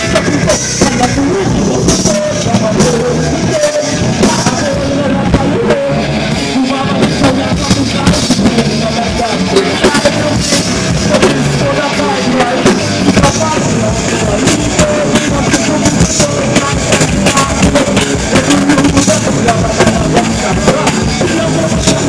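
A heavy rock band playing live at full volume: electric guitars, bass and drum kit, with a vocalist singing into a microphone.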